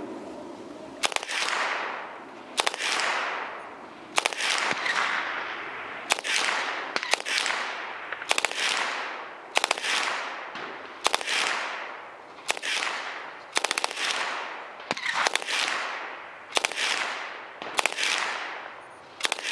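Submachine gun firing about fifteen times, one report every second or so, each followed by a long echo rolling away over the range.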